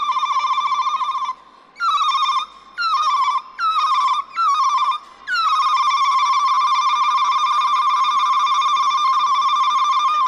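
A woman ululating into a microphone: a high, rapid warbling trill, broken into four short trills a couple of seconds in, then one long held trill.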